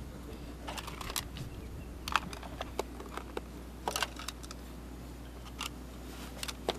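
Sporadic small clicks and crinkles of food wrappers being handled, irregular and light, over a steady low background hum.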